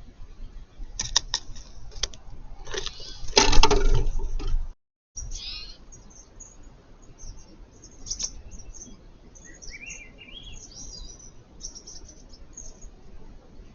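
Birds chirping around a feeder, with scattered short high calls and one run of notes rising in pitch. Earlier come a few sharp clicks and a loud, noisy scuffle lasting about a second, then a sudden cut.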